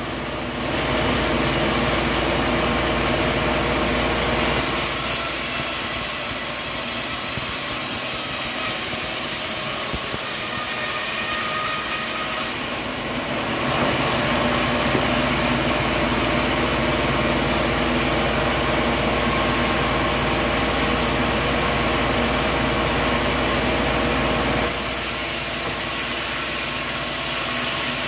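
Sawmill machinery running steadily, with an engine hum under the noise of a saw cutting coconut wood. The sound shifts abruptly about five seconds in, again around thirteen seconds and near the end.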